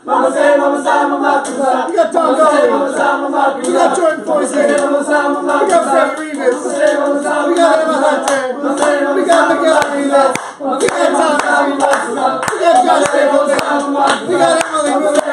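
A group of voices singing together, loud and lively, with hand claps throughout.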